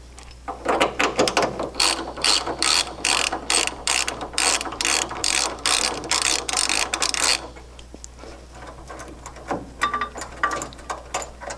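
Hand ratchet wrench clicking in quick, even strokes as it turns out the shock absorber bolts on a classic Mustang's shock tower. The clicking runs for about seven seconds, then a few fainter clicks follow near the end.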